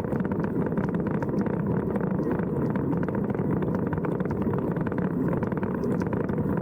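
A vehicle engine running steadily while under way.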